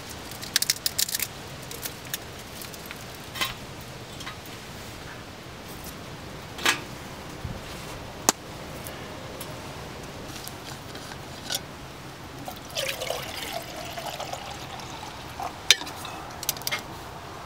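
Twig fire crackling and snapping in a small stainless steel wood-burning stove, with a cluster of sharp snaps about a second in and single ones after. A few seconds before the end, water is poured into a stainless steel cup.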